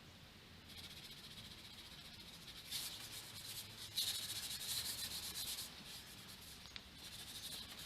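Latex paint being worked onto a wooden deck rail: a scratchy rubbing hiss of the applicator on the wood, loudest from about three to nearly six seconds in.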